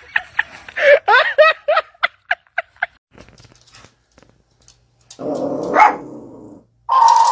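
Dog barking: a quick run of short, high yips that thins out after about three seconds. After a pause, louder pitched sounds come in near the end, including one long held tone.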